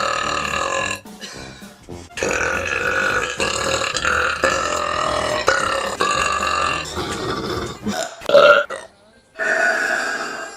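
A girl burping several times: long, drawn-out, pitched belches, the longest lasting about five seconds, with a short loud burp about eight seconds in.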